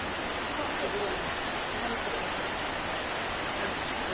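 Rain falling steadily on banana leaves and dense foliage, making an even, unbroken hiss.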